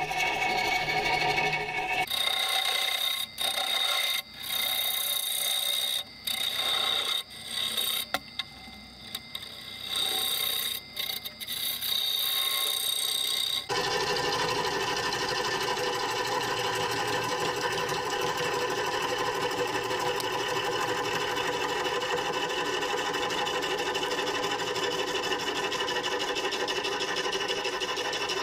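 A turning tool cutting a spinning maple bowl blank on a wood lathe. In the first half the cut is broken by short gaps as the tool comes on and off the wood. From about fourteen seconds in it becomes a steady scraping cut.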